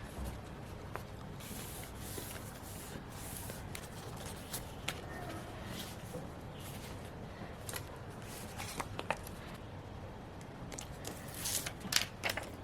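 Paper and sticker handling while decorating a journal page: soft rustling and brief scrapes with scattered light clicks and taps, busier and louder near the end, over a steady low hiss.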